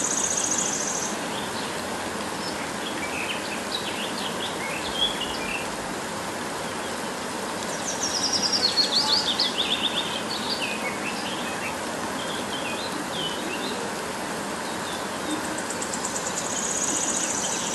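Steady hiss of heavy rain, with birds chirping over it and a run of falling chirps about eight seconds in.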